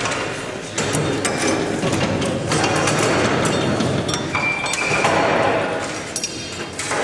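Metal clinking and knocking of steel armor mounting brackets and hand tools against an M1 Abrams tank hull as the brackets are fitted, with a brief high squeal a little past the middle.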